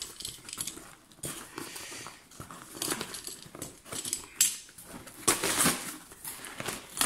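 Utility knife slitting the packing tape on a cardboard parcel, with hands scraping and handling the cardboard: irregular short scrapes and clicks, the loudest strokes about two thirds of the way through.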